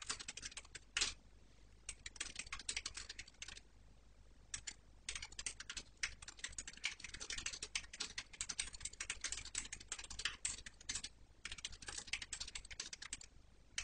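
Typing on a computer keyboard: runs of quick keystrokes with a few short pauses between them.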